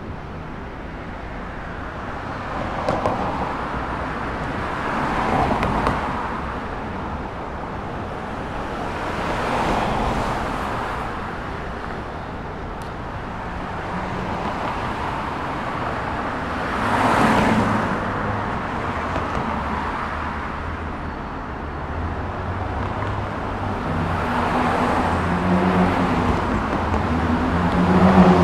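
Street traffic: cars passing one after another, each swelling and fading, over a steady roadway hum, with a vehicle engine running close by and getting louder near the end.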